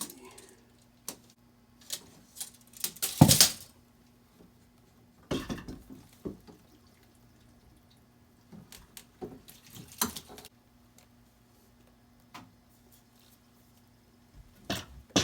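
Water dripping and splashing from freshly cut shower supply pipes, with scattered clinks and knocks of tools and fittings being handled. The loudest knock comes about three seconds in.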